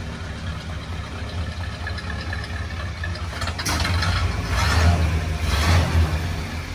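1935 Ford pickup's flathead V8 idling with a steady low exhaust note, getting louder for a couple of seconds after the middle.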